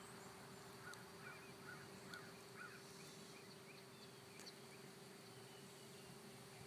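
Faint, distant crows cawing: a quick run of about a dozen short calls over two and a half seconds, over a steady faint hum.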